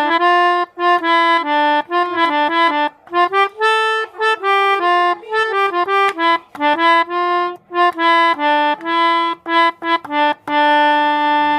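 Combined Basuri and Alzifa telolet multi-tone bus horns played as a quick tune: short notes, clipped with brief gaps, stepping up and down in pitch, ending on a longer held note.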